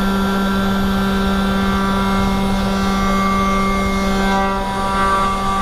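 500 W spindle of a 3018 desktop CNC router running at speed with a steady whine, its end mill cutting a slot through a wooden board with a hiss of chips.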